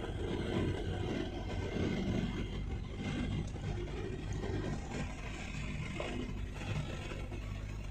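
Steady engine hum and road noise heard from inside a moving vehicle's cabin.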